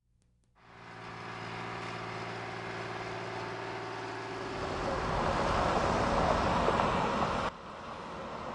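A motor vehicle's engine running, with a steady hum that gives way to louder, fuller engine and road noise about halfway through; the sound drops off suddenly near the end and then builds again.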